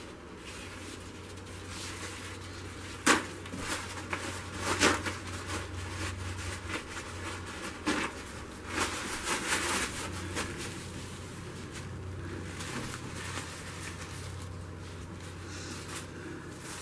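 A few sharp knocks and short bursts of rustling, as of things being handled, over a steady low hum.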